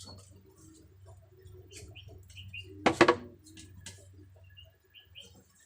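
Small birds chirping in short, repeated high notes, over a low steady hum. About three seconds in comes a sharp double knock, the loudest sound.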